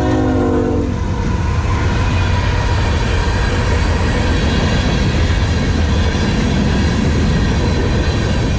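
Freight train passing close by: the locomotive's multi-tone horn ends about a second in, then a loud, steady rumble of the train rolling past.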